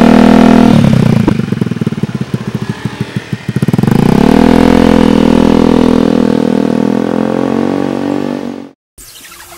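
Honda Vario 110 carburettor scooter's single-cylinder engine running through a NOB1 Neo SS aftermarket exhaust. It is held at a light rev, drops to an idle where each exhaust pulse can be heard separately, then rises again at about four seconds and holds steady before cutting off suddenly near the end.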